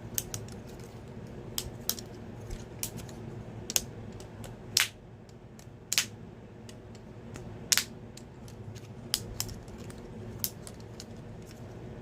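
Lego butterfly knife being flipped, its plastic handles clacking together in sharp, irregular clicks, a dozen or so, over a faint steady hum.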